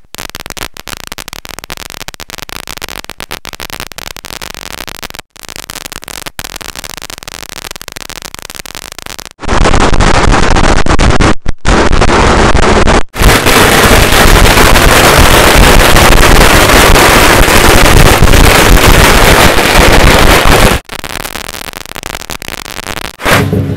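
A long string of firecrackers going off in rapid, continuous crackling. About nine seconds in, the bursts get much louder and overload the microphone, then fall back to the quieter crackle a few seconds before the end.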